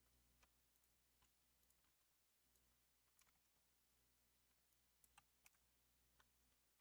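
Near silence, with a handful of faint, irregular computer keyboard key clicks.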